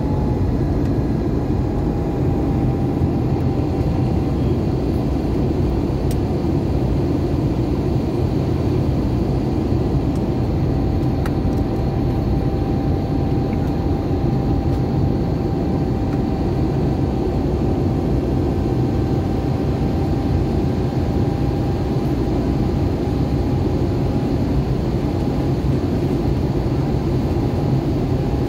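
Steady engine and rushing air noise inside a passenger airplane's cabin, with a faint steady whine above it.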